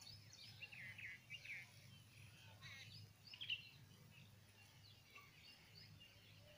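Faint birds chirping: quick runs of short chirps in the first second and a half and again around three seconds, over a low steady rumble.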